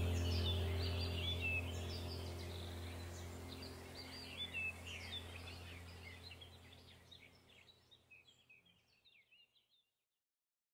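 Background ambient soundtrack: birdsong chirps over a steady low drone, fading out steadily and going silent near the end.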